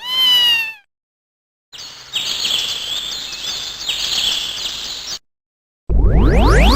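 Samsung SGH-X480 mobile phone playing its alert sounds through its speaker: first a short recorded cat meow falling in pitch, then about three seconds of hiss with high chirps. About six seconds in, a loud electronic tone starts, with many pitches sweeping up and down across each other.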